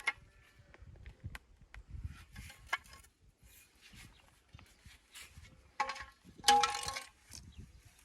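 Stones being handled and set for a dry stone wall: scattered sharp clicks and knocks of stone on stone. About six and a half seconds in comes a louder, short, grating sound with a ringing pitch.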